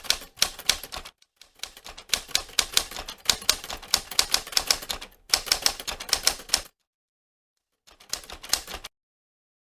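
Rapid keystroke typing clicks, several a second, in runs broken by two short pauses, stopping abruptly near the end.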